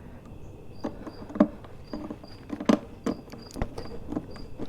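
Irregular small clicks and knocks of hardware being handled as a screw is driven into a saddlebag mount. A faint high chirp repeats in pairs at a regular pace behind it.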